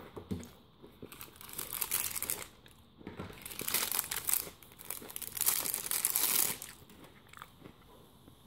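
A clear plastic bag crinkling as a wristwatch is worked out of it, in three bursts of crackling that die away about seven seconds in.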